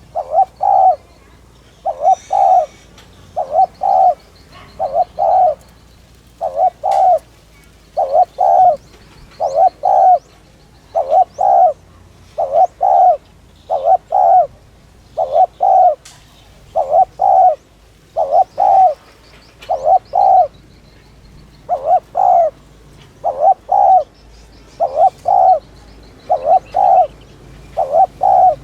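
Spotted dove cooing, a short phrase of two or three notes repeated about every second and a half in a steady, fast series: the urgent 'thúc' coo that dove keepers use to stir up other doves.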